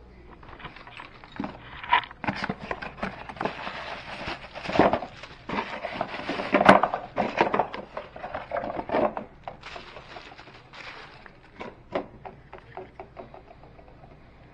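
Hand work on dishwasher parts: irregular knocking, clicking and scraping of parts being handled. The loudest knocks come in the middle, then a few scattered clicks near the end.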